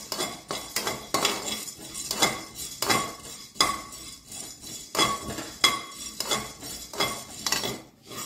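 A metal spatula scraping and clinking against a metal kadai, stirring black peppercorns as they dry-roast, in repeated strokes about one or two a second.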